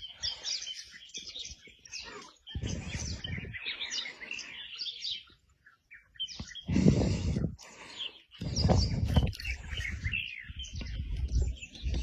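Small birds chirping and twittering in quick, busy phrases. Several louder, low, muffled rumbling bursts cut in, each lasting under a second.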